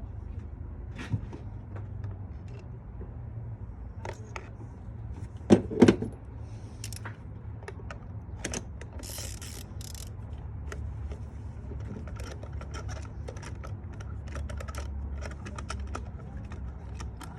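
Metal hand tools clicking and clinking while spark plugs are changed, with two loud sharp knocks about five and a half seconds in and a brief hiss a few seconds later, over a steady low hum.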